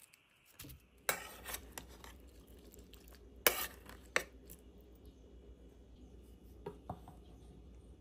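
Kitchen clatter: a metal bowl and utensils clinking and knocking a few times, the loudest clank about three and a half seconds in, over a low steady hum.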